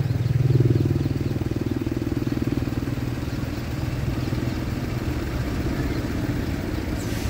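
Diesel engine of a Tata car-carrier truck running as the truck rolls slowly past, a low pulsing engine note that is loudest about half a second in and then holds steady.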